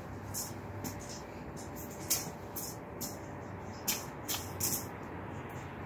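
Faint, irregular scuffs and scrapes over a steady low outdoor background hum.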